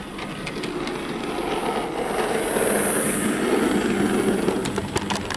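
Dapol LSWR B4 model tank locomotive running along the track: a steady whir of its motor and wheels that grows louder as it runs close by, with a few clicks near the end. It runs smoothly, with no grinding or stuttering.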